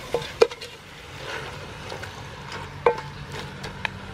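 Wooden spatula stirring chicken and curry paste in a large stainless steel pot, with a handful of sharp knocks of the spatula against the pot, the loudest about half a second in.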